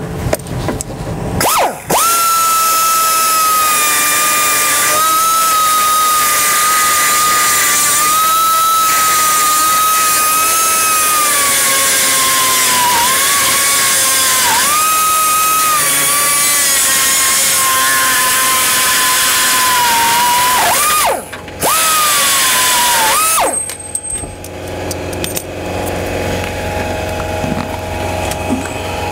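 Central Pneumatic air die grinder with a rotary rasp bit running at a high steady whine as it grinds out a bolt hole in steel; its pitch sags and recovers several times as the bit bites under load. It stops after about twenty seconds, runs again for about two seconds, and cuts off.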